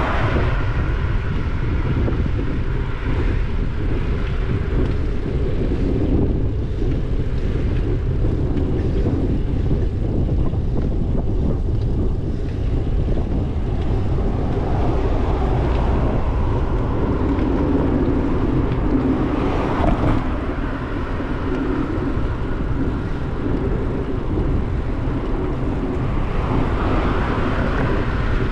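Steady wind rumble on the microphone of a moving bicycle, with cars passing on the road alongside now and then.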